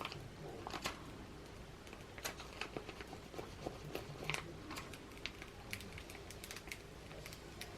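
Faint, scattered light ticks and crackles of vinyl and transfer tape being handled and rubbed down by hand.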